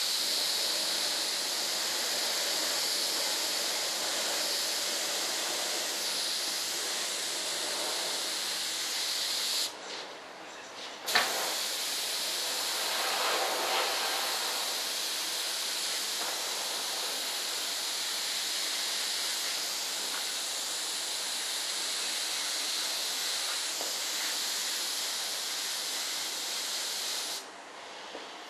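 Compressed-air paint spray gun hissing steadily as it sprays paint. It cuts off briefly about ten seconds in, starts again with a sharp burst, and cuts off once more near the end.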